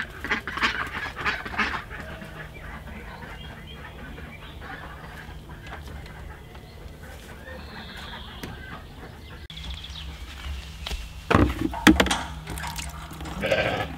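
Aylesbury ducks quacking several times in the first couple of seconds. About eleven seconds in, a few loud knocks as the tap on a metal rainwater tank is handled over a bucket.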